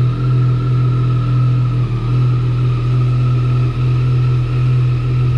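Yamaha MT-09 SP's inline three-cylinder engine running under way at a steady engine speed, a loud, even drone with no revving up or down.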